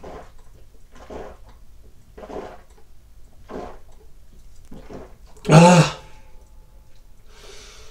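A man gulping beer from a glass, a series of soft swallows about one every second, then a loud satisfied "ahh" after the drink about five and a half seconds in.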